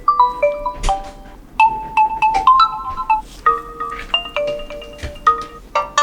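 A Realme C31 default alarm tone playing: a bright melody of short, ringing notes in quick succession, which come thicker near the end.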